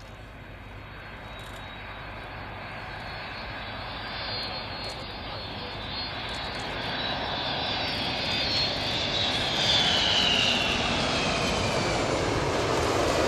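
Boeing KC-135R Stratotanker's four CFM56 (F108) turbofan engines on landing approach, growing steadily louder as the aircraft closes in. A high whine from the engines slides down in pitch about two-thirds of the way through.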